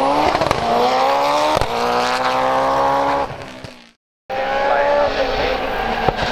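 A race car's engine accelerating hard at high revs, its pitch climbing steadily, with a couple of sharp cracks along the way. It fades out a little past three seconds in and breaks off. After a brief gap, another race car's engine is heard running at high revs.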